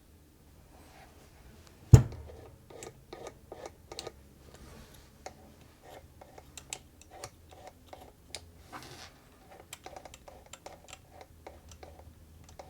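A single loud knock about two seconds in, followed by a run of irregular light clicks, like keys being typed.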